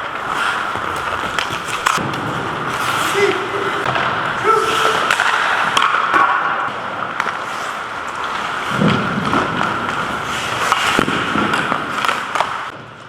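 Ice hockey skates carving and scraping across the ice, with repeated sharp clacks of sticks on the puck and the puck against the boards.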